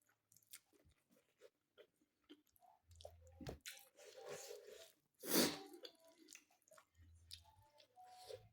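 A person chewing food with close, wet mouth clicks and small crunches, with a short, louder breathy sound about five seconds in.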